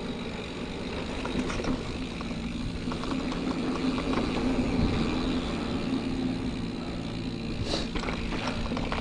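Mountain bike riding a dirt trail, heard from a camera on the bike: steady tyre and drivetrain rumble with wind noise and scattered light clicks and rattles over bumps.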